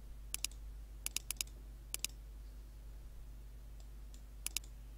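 Computer mouse button clicking in close pairs: a double click about a third of a second in, a quick run of four clicks around a second in, a pair at two seconds and another pair near the end. A faint steady low hum runs underneath.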